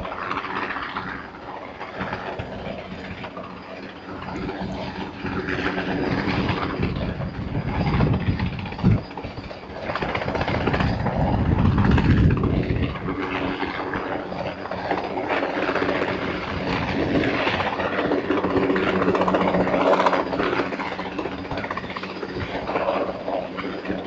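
Helicopter hovering overhead with a load on a long line: a steady engine-and-rotor drone with a constant hum, swelling louder about a third of the way in and again around the middle.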